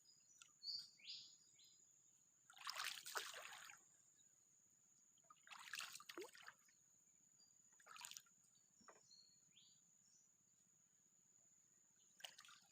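Mostly quiet, with a few short splashes and trickles of water, the longest about three seconds in. There are faint short bird chirps and a steady high-pitched whine.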